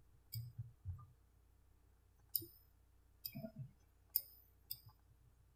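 About six faint, sharp clicks of computer controls, spread unevenly through the few seconds.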